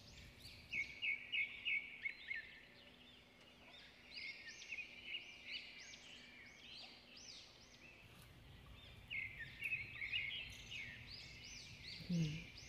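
Birds calling in bouts: repeated arching chirps, some in quick runs, with pauses between the bouts. A faint low steady hum lies underneath.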